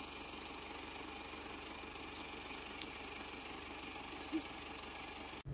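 Faint night ambience: insects chirping in short, high-pitched trills over a steady low hiss.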